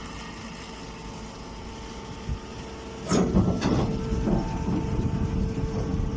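Hay baler machine running with a steady hum. About three seconds in, two sharp bangs are followed by louder rattling and clattering as it works.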